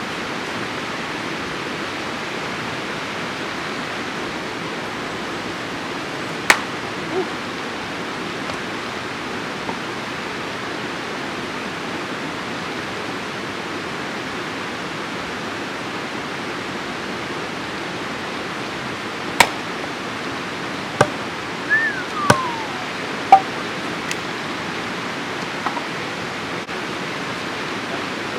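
Wood campfire burning with a steady hiss, broken by a handful of sharp single pops from the burning wood, most of them in the second half. One short falling whistle comes just before one of the pops.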